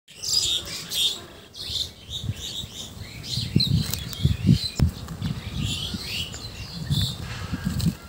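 Several songbirds chirping and singing in trees, many short high calls and trills overlapping one another. Low muffled bumps run underneath, heaviest around the middle and near the end.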